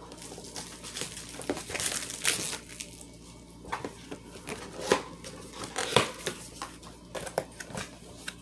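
Packaging crinkling and rustling as a cardboard box is handled and opened, with a few sharper crackles about two, five and six seconds in.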